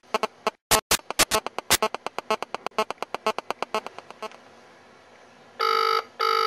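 A mobile phone's key beeps in a fast run of about eight a second as a number is dialled, with several louder clicks about a second in. Near the end comes a double ring of the ringback tone from the phone's speaker, signalling that the call is ringing through.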